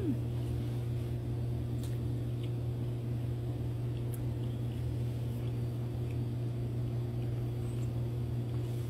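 A steady low hum, with quiet closed-mouth chewing of a soft frosted carrot muffin and a few faint clicks over it.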